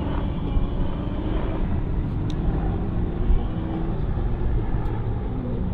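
Autocross car's engine revving up and down through a coned course, its pitch rising and falling with the throttle.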